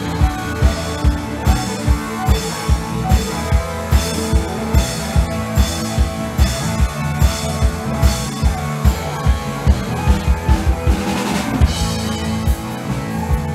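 Band playing rock music: a drum kit keeps a steady beat of about two and a half hits a second, with bass notes underneath. A quick run of drum hits comes about ten seconds in.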